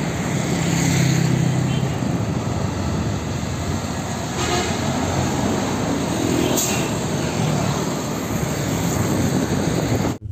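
Steady road traffic: a heavy car-carrier truck's engine running as it drives past, with motorcycles and cars going by, the low engine rumble loudest about a second in.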